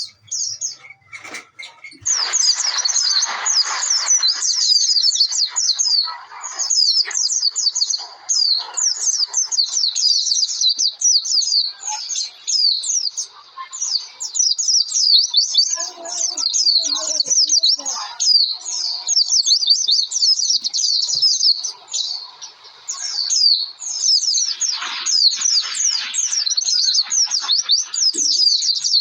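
White-eye (pleci) singing in full voice: a rapid, high-pitched twittering song that runs on almost without a break, pausing only briefly now and then.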